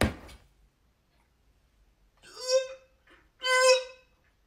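A short sharp breath, then two high-pitched, drawn-out whimpering wails of pain from a young man, about a second apart, the second louder.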